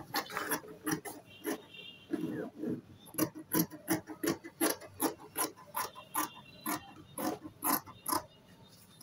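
Dressmaking shears cutting through Ankara cotton print fabric: a run of crisp snips, about two a second, after some rustling as the cloth is handled.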